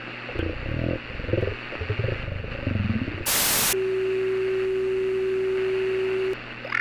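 Zombie-like growling and groaning for about three seconds, then a sudden short burst of static and a single steady low tone held for about two and a half seconds before it cuts off.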